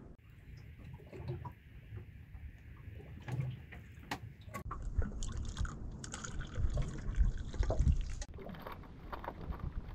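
Liquid poured from a vacuum flask into its cup, with knocks from the flask being handled; the pour stops suddenly near the end.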